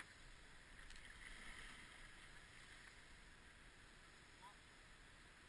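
Near silence: a faint, even rush of river water around an inflatable raft, swelling slightly for a second or so near the start.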